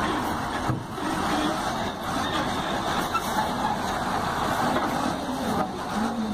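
Lonking wheel loader's diesel engine running steadily while it dumps its bucket into a dump truck and backs away.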